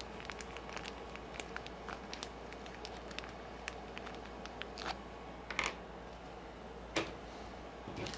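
Small hard parts handled on a work table: faint scattered clicks and rustling, with louder clicks about five and a half and seven seconds in, over a low steady hum.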